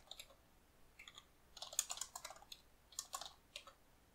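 Computer keyboard keys clicking as a command is typed, in uneven flurries of keystrokes; the busiest run of keys comes about two seconds in, with another short burst a second later.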